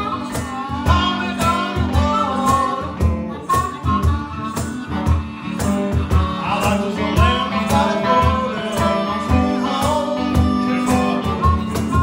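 A blues band playing live: a man singing over a strummed hollow-body electric guitar, with percussion keeping a steady beat.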